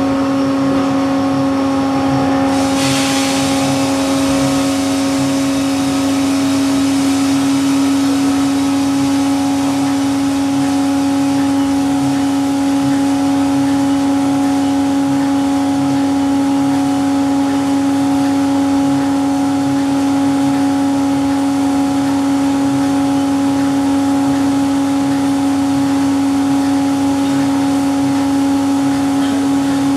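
Small drum coffee roaster running: a steady motor hum with a faint repeating pulse beneath it, joined about two and a half seconds in by a steady airy hiss.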